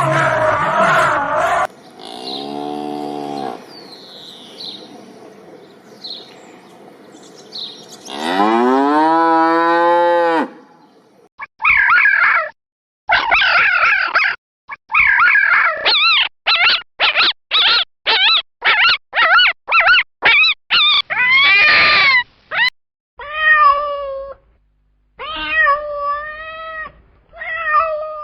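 Several different animal calls one after another: a long call rising in pitch, then a fast run of about a dozen short, sharp calls, then a few shorter wavering calls near the end.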